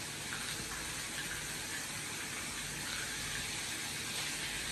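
Meat sizzling steadily on a tabletop charcoal grill pan.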